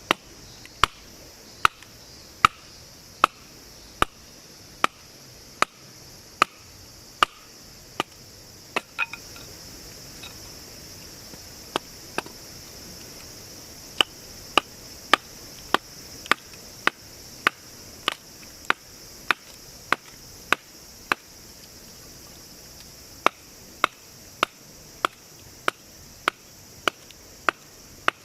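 Sharp chopping knocks on wood, evenly spaced at about one every three-quarters of a second, in runs broken by short pauses. A steady high hiss of insects or running water lies under them.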